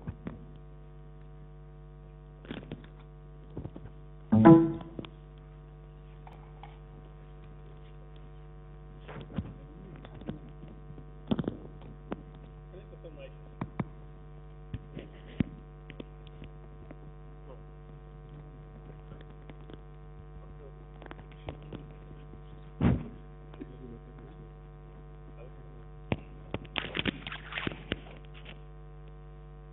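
Steady electrical mains hum, picked up through the auditorium's sound system. Scattered bumps and knocks sit over it: a loud one about four and a half seconds in, another past the middle, and a flurry of small knocks near the end.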